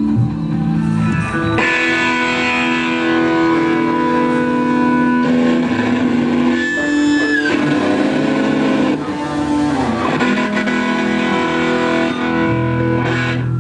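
Live band music led by electric guitar played through effects, with held notes and chords and a falling slide about halfway through.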